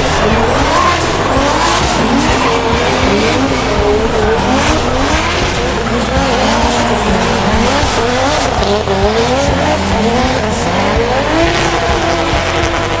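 Drift car's engine revving up and down over and over as the throttle is worked through a slide, over a steady screech of spinning tyres.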